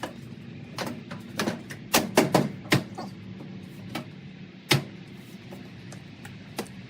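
A string of irregular knocks and taps, about nine sharp hits spread over several seconds, over a steady low hum.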